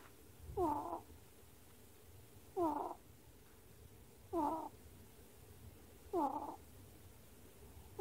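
A sleeping ferret snoring: a short pitched snore with each breath, four times about two seconds apart.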